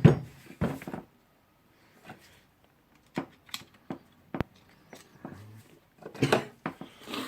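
Scattered clicks and knocks of small metal parts from a rotary hammer drill's SDS-plus tool holder being handled and set down during disassembly. The loudest is a knock right at the start.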